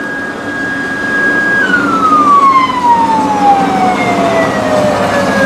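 A siren-like tone from a rail inspection draisine holds steady at a high pitch, then winds slowly down in pitch over about four seconds, over the low hum of the draisine's diesel engine running.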